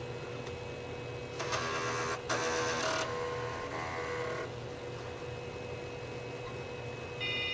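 Floppy disk drive of a Packard Bell 386 PC seeking during boot: its stepper motor buzzes and whirrs for about three seconds, with a short burst again near the end, over the computer's steady hum.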